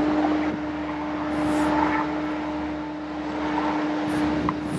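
Diesel engine of a 2008 Ford F-550 bucket truck running with the PTO engaged to drive the boom's hydraulics: a steady drone with one constant tone.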